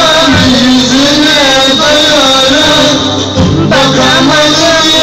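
Man singing a Turkish song into a handheld microphone over backing music, amplified and loud, with a short break in the voice about three seconds in.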